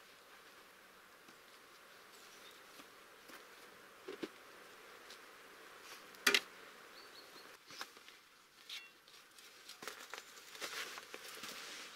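Scattered footsteps, knocks and rustling of a person moving about and handling gear. One sharper knock comes about six seconds in, and the rustling grows busier near the end.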